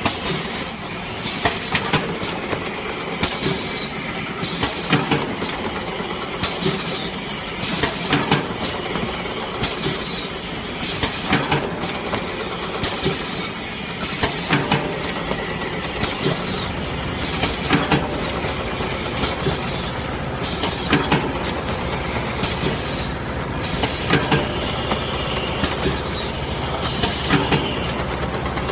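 Automatic paper tube curling machine running in a steady cycle. About every 1.7 seconds there is a pair of short, sharp hisses of air from its pneumatic actuators, with clacks, over continuous mechanical clatter. A low motor hum joins a little past halfway.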